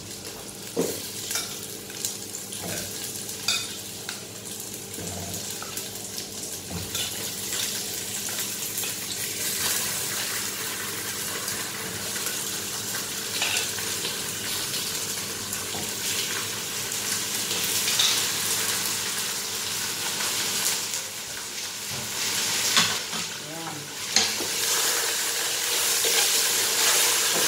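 Raw chicken pieces sizzling as they go into hot oil with sautéed garlic, onion and ginger in a stainless steel pot, with scattered knocks and scrapes as the pieces are dropped in and stirred with a wooden spoon. The sizzle grows louder about ten seconds in.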